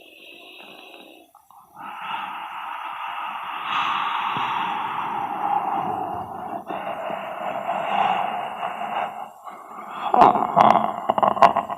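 A man making horror-film sound effects with his mouth and breath: long, rasping, breathy sounds with a brief break in the middle, then a run of sharp gasps and clicks near the end.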